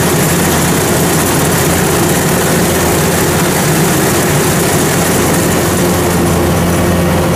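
Combine harvester running steadily while cutting rice: the engine's steady drone under the clatter and rush of the header, reel and cutter bar working close by.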